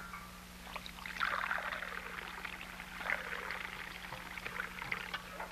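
Water running and pouring into a drinking glass. It starts about a second in and goes on until near the end.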